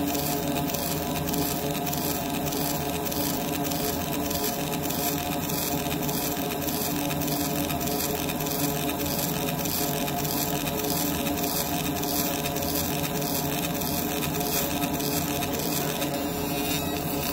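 Fiber laser engraver working a metal handcuff in rapid repeated passes: a steady buzz of several held tones over a hiss, with a fine fast pulsing. The texture shifts slightly about sixteen seconds in.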